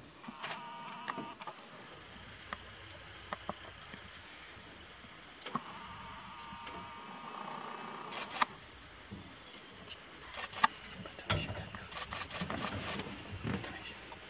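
Camcorder zoom motor whirring in short runs, about half a second in and again around six to eight seconds, over a steady high hiss. Scattered sharp clicks, thickest in the second half.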